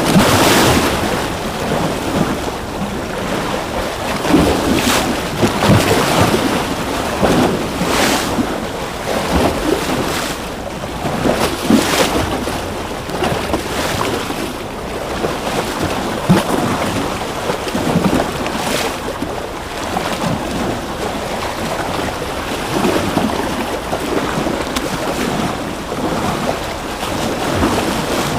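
Ocean waves washing and breaking, a continuous surf wash with louder splashes every few seconds, about a second in and again at about 5, 8, 12 and 19 seconds.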